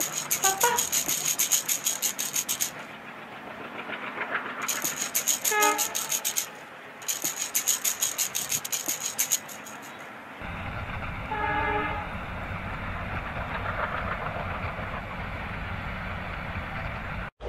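Railway sounds: a train's rapid, even clickety-clack in three stretches, a short horn toot twice, then a steady low rumble from about ten seconds in.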